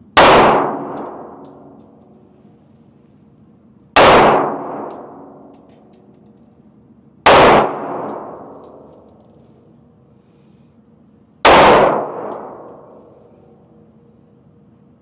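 Four handgun shots fired slowly, several seconds apart, each followed by a long ringing echo that fades over about two seconds, with a few faint ticks after each shot.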